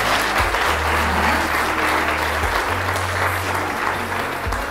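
Wedding guests applauding the groom's 'yes' to the marriage vows, a dense steady clapping, over background music with low held bass notes.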